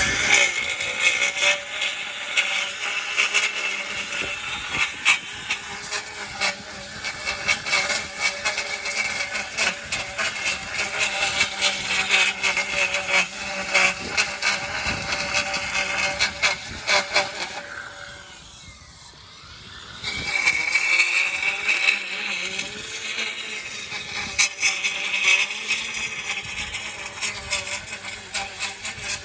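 Battery-powered Ego multi-tool with its edger attachment running, the blade cutting a lawn edge with a steady whine and a constant crackle of grit and debris. About eighteen seconds in, the motor eases off and winds down for a couple of seconds, then speeds up again.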